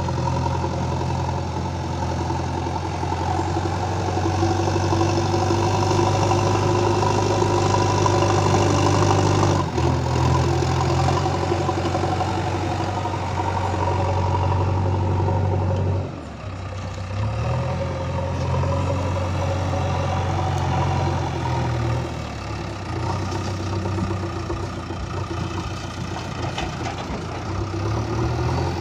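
Diesel engine of a JCB backhoe loader running under working load as it scoops and carries soil. The engine note rises and falls with the work, and the sound breaks off abruptly and resumes twice.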